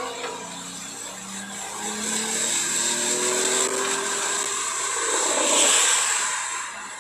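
2021 Porsche 911 Carrera 4S's twin-turbo flat-six pulling in third gear, its pitch rising steadily, over a hiss of tyres on standing water. About five seconds in, a loud rush of spray and tyre noise swells and then fades as the car slows.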